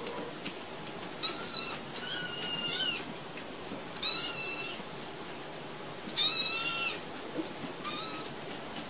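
Young kittens mewing while they play-fight: about five high-pitched mews, the longest lasting about a second, the last one fainter.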